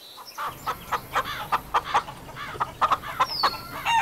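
Hens clucking, an irregular run of short calls from several birds in a flock.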